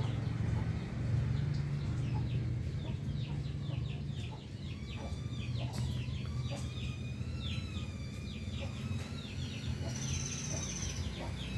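Birds chirping busily: many short, high calls overlapping, over a steady low hum.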